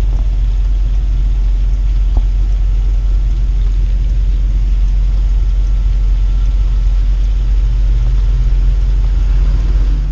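A Class A motorhome's engine running at low speed, heard from inside the cab as a steady low rumble.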